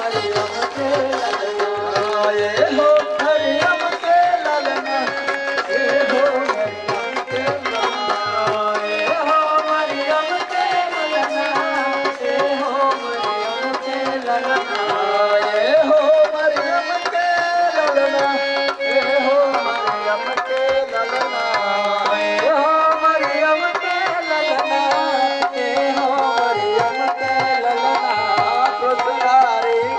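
Devotional worship song: congregation singing with a hand drum keeping a steady beat.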